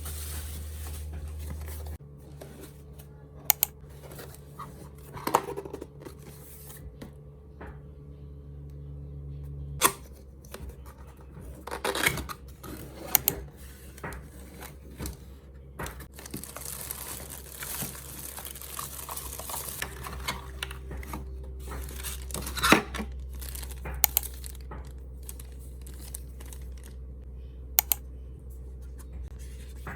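Packaging being torn open and crinkled by hand, with scattered clicks and knocks as the items are handled, over a steady low hum.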